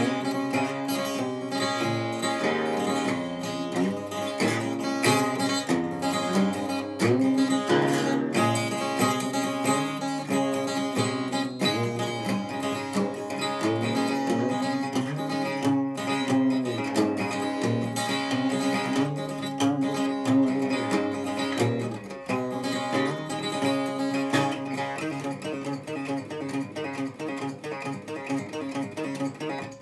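Solo acoustic guitar, plucked in a free improvisation, with notes ringing over one another and some of them sliding in pitch.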